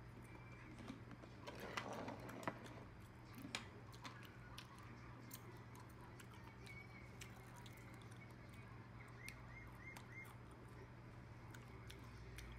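Faint close eating sounds: soft chewing and light clicks of a utensil against dishes, busiest about two seconds in, over a steady low hum.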